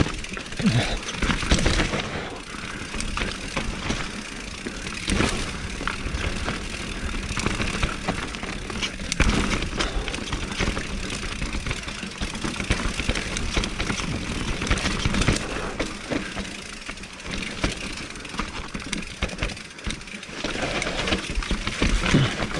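Mountain bike ridden fast downhill over a dirt trail: steady tyre and rolling noise with frequent knocks and rattles of the bike as it runs over bumps, rocks and roots.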